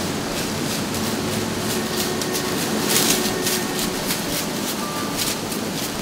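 White-tailed deer footsteps crunching and rustling through dry fallen leaves, irregular, the loudest about three seconds in, over a steady rumbling background noise.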